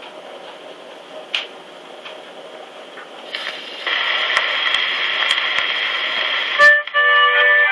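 Steel needle of a Sonora phonograph's reproducer set down on a spinning 78 rpm shellac record. The lead-in groove gives a loud hiss with scattered crackles from about four seconds in, and the recorded music begins near the end.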